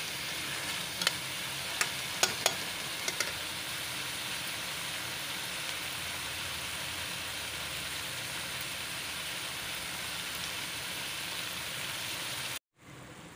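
Chicken and bitter gourd (karela) curry sizzling steadily in oil in a metal pan, the masala cooked down until the oil has separated. A few light taps of the metal spatula on the pan come in the first three seconds, and the sizzling cuts off suddenly near the end.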